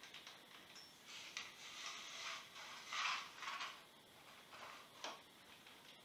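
Bicycle repair stand being folded up, its legs loosened and drawn in: faint sliding and rubbing from about a second in, loudest about three seconds in, and a single sharp click about five seconds in.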